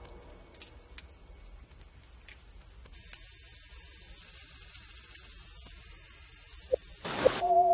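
Low hum and faint static with a few scattered faint clicks. Near the end, a brief whoosh and background music begin, with a wavering melodic lead.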